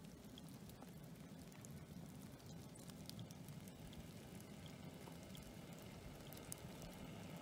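Near silence: faint outdoor ambience, with a low rumble and a few scattered faint ticks.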